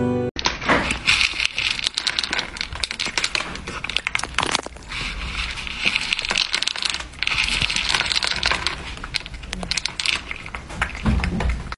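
A cat eating dry kibble from a plastic bowl: close, rapid crunching and rattling of the pellets in irregular runs, with short breaks.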